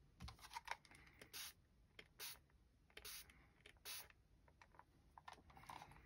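Faint handling sounds of paper mending: light ticks and several short scratchy rubs of fingers and tools against paper on a cutting mat.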